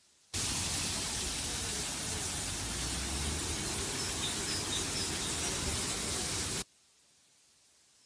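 Loud, steady hiss like static that cuts in abruptly just after the start and cuts off just as abruptly about six and a half seconds in. A few faint bird chirps come through it about halfway.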